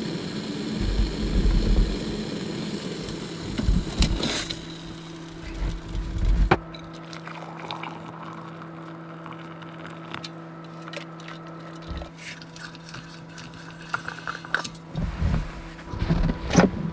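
Canister gas stove burner (MSR Reactor) running under a pot of boiling water, cut off with a sharp click about six and a half seconds in. After that, metal clinks and handling as the hot water is poured from the pot into a steel cup.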